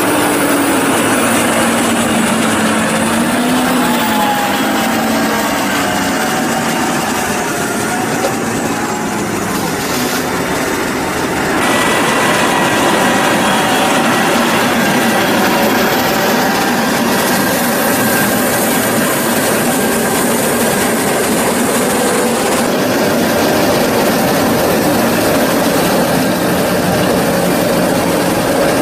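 Heavy tractor engines running under load on a silage clamp, their pitch rising and falling in the first few seconds. Mixed with them is the clattering of a forage wagon's unloading gear as it discharges chopped maize silage.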